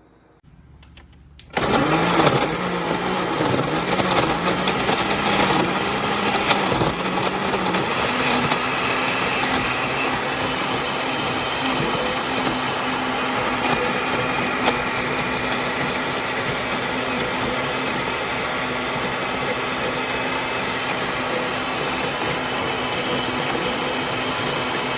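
Countertop blender motor running. Its low hum wavers for the first several seconds, then settles a little higher and holds steady until it cuts off near the end.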